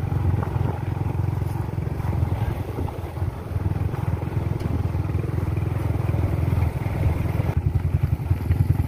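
Motorcycle engine running while riding along, a steady low rumble.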